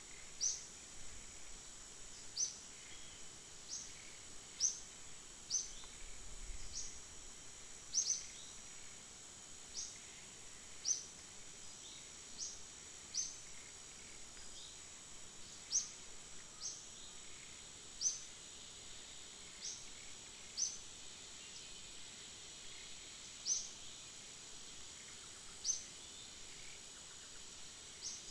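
Forest ambience: insects droning steadily at a high pitch, with a bird's short, sharp chirps falling in pitch and repeating irregularly every second or two.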